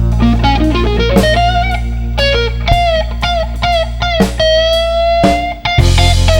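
Live electric blues guitar solo: a run of picked notes with string bends, then a long bent note held for about a second, over a steady bass line.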